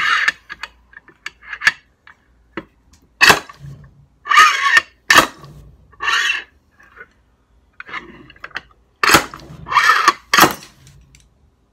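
Irregular sharp metallic clanks and rattles, about a dozen, some ringing briefly: loose hardware, tools and the aluminium clutch cover being handled and set down on a wooden workbench.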